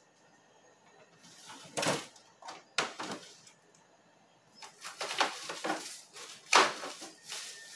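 Frozen sacolé ice pops in plastic bags rustling and clattering against each other as they are taken off freezer shelves by the handful and dropped into the cart's compartment. The sound comes in about four short bursts, with a quiet pause in the middle.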